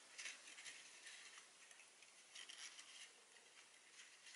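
Faint rustling and scraping of gift ribbon with a metallic edge being threaded through the punched holes of a small cardstock box, in a few short spells.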